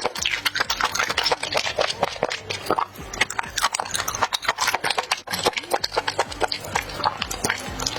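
Close-miked eating sounds: chewing of spicy, saucy octopus and enoki mushrooms, a rapid run of crisp, sticky clicks and crunches several times a second.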